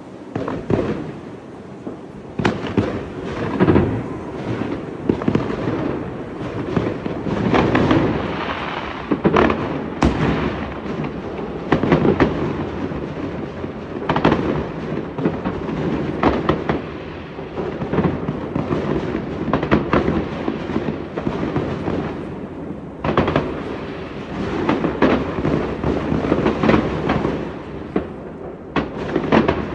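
Fireworks display: a continuous barrage of shell bursts, many sharp bangs a second overlapping, each trailing off in echo, with crackling between.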